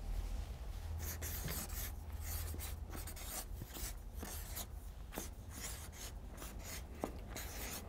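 Marker pen writing on flip-chart paper: a run of short, irregular scratchy strokes as the letters are drawn.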